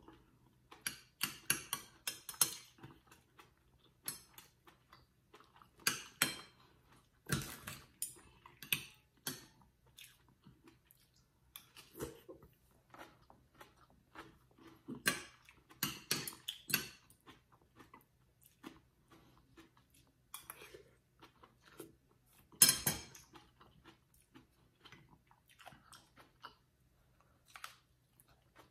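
A person eating soup at the table: chewing, with a metal spoon and fork clinking and scraping against the bowl in short, scattered sounds and one sharper knock about three-quarters of the way in.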